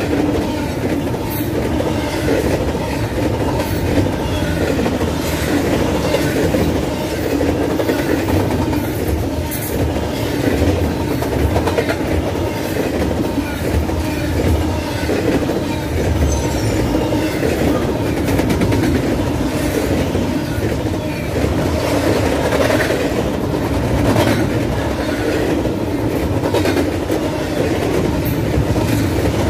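Double-stack intermodal freight train passing close by at about 60 mph: a steady rumble and clatter of steel wheels on rail as the cars roll past, with scattered sharp clicks and a few brief, faint high wheel squeals.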